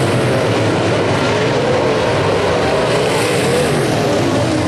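Several UMP dirt modified race cars' V8 engines running hard at once, loud and continuous, their pitches overlapping and wavering up and down as the cars race around the dirt oval.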